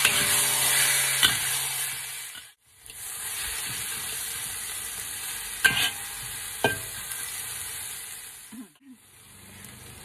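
Shrimp, fish balls, shellfish and vegetables sizzling in a hot wok while a metal spatula stirs and tosses them. Two sharp clinks of the spatula against the wok come in the middle. The sizzle cuts out briefly twice.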